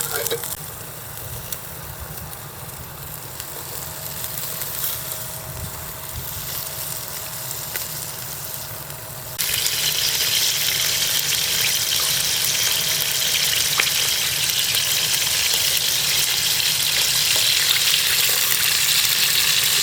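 Squid and yakitori sizzling on a camp grill: a steady frying hiss that suddenly turns louder and brighter about nine seconds in.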